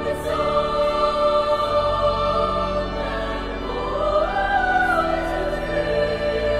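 Background choral music: voices singing long held notes, with a higher wavering line coming in about midway.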